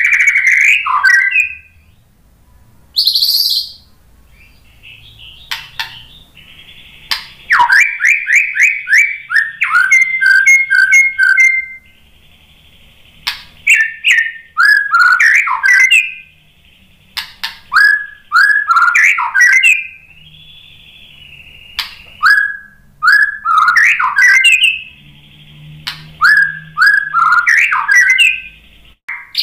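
White-rumped shama singing: bouts a few seconds long of rapid chirps and quick falling whistled notes, laced with sharp clicks, separated by short pauses.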